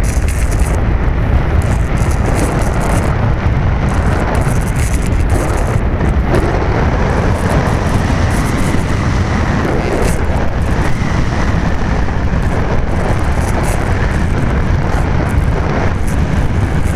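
Air rushing over the microphone of a keychain camera strapped to a Dream-Flight Alula glider in flight: a loud, steady rumble of wind buffeting the microphone, with no motor.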